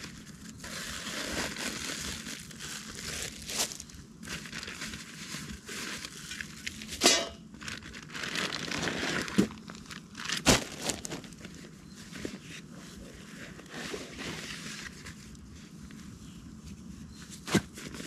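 Rustling and crinkling, like material or gear being handled, broken by a few sharp clicks and knocks, the loudest about midway.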